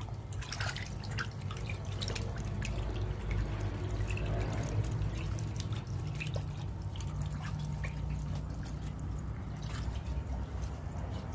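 Water dripping and splashing in a catfish pond being drained, with scattered small splashes over a steady low rumble.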